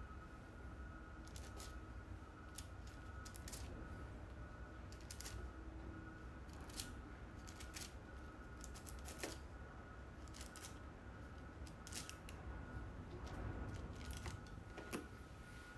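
Masking tape being handled and pulled off a canvas: scattered, irregular short crackles and clicks over a faint steady hum.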